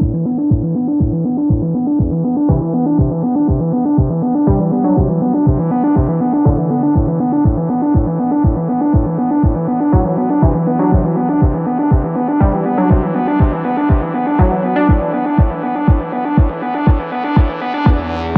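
Electronic background music: a steady kick drum at about two beats a second under synthesizer chords, growing brighter as it goes, with the bass changing near the end.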